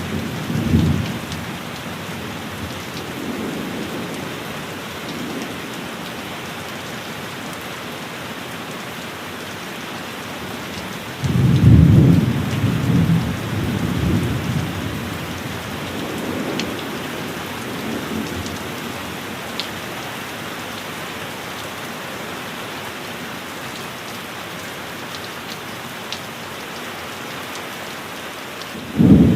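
Heavy rain falling steadily through a thunderstorm, with rolling thunder. A loud rumble of thunder breaks about 11 seconds in and rolls on for a few seconds. Weaker rumbles follow, and another thunderclap starts right at the end.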